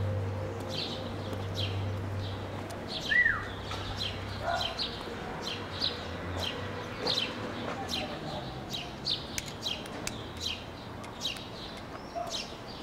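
Small birds chirping: a steady run of short, high chirps, several a second, over a low hum that fades out by about halfway. About three seconds in comes one louder whistled note that rises and falls.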